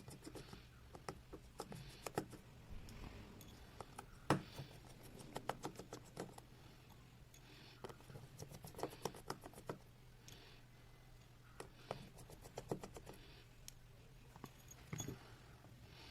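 Small, sharp clicks, taps and scrapes of hand tools on the parts of an opened iPhone 6s during repair, coming in irregular clusters over a low steady hum.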